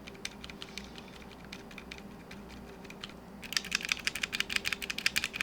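Typing on a Drop ALT mechanical keyboard fitted with silent Alpaca switches, really quiet, soft keystrokes. About three and a half seconds in the typing turns faster and louder.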